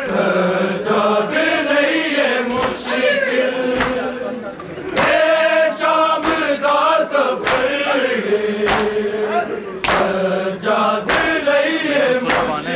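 A crowd of men chanting a mourning lament (nauha) together, with sharp hand-on-chest slaps of matam landing roughly once a second.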